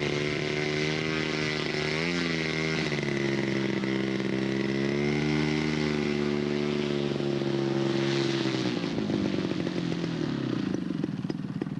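Radio-controlled scale model airplane's engine running steadily at high revs. Its pitch dips and recovers about two seconds in, and it fades with falling pitch near the end.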